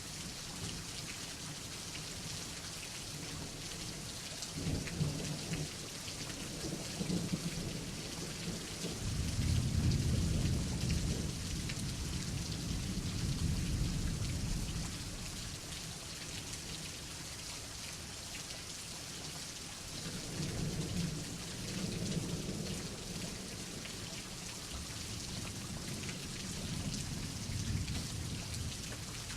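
Steady rain falling with thunder rumbling: a few short low rumbles about five seconds in, a longer, louder roll from about nine to fifteen seconds, and another rumble around twenty seconds in.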